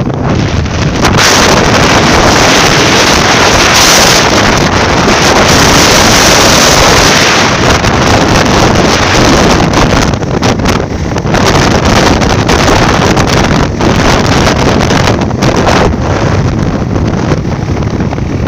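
Loud wind noise buffeting the microphone on a motorcycle riding at road speed. It is strongest from about a second in to past the middle, then turns gustier with short sudden dips.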